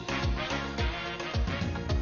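Instrumental music with a steady deep drum beat, about two beats a second.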